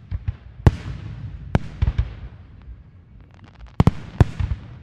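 Firecrackers going off: a run of sharp bangs at uneven intervals, each with a short echo trailing after it, over a low rumble.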